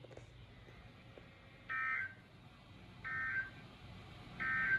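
Emergency Alert System end-of-message tones: three short, identical bursts of warbling two-tone data, each under half a second, spaced a little over a second apart. They mark the close of the broadcast severe thunderstorm warning.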